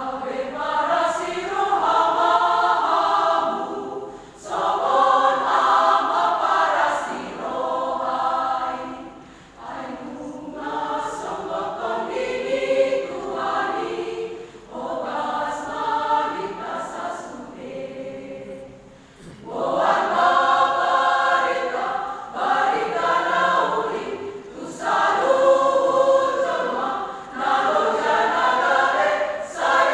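A church choir singing a hymn in several voice parts, in phrases with short breaks between them.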